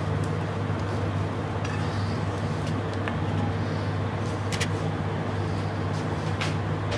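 A steady low mechanical hum with a few faint light clicks.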